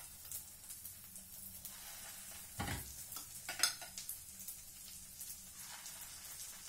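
Pancake batter faintly sizzling in a frying pan over low heat, with a few clicks and knocks of a spoon against the batter bowl and pan as more batter is spooned in. The loudest are a dull knock about two and a half seconds in and a sharp click a second later.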